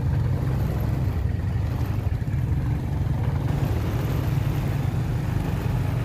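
A motor vehicle's engine running steadily while on the move, a continuous low hum with no change in pitch.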